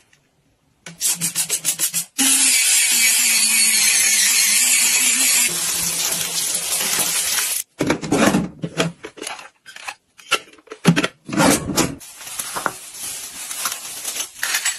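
A short run of quick rubbing strokes, then about five seconds of steady scrubbing with a low motor hum from an electric cleaning brush. After that come irregular knocks and rubs as plastic containers are handled and set on a shelf.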